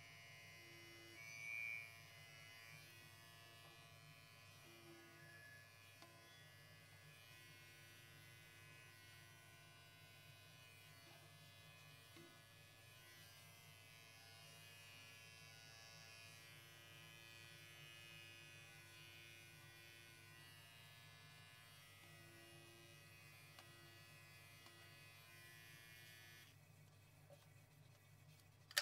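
Electric pet hair clipper running with a faint, steady buzz while trimming a long-haired Persian cat's fur; it switches off near the end.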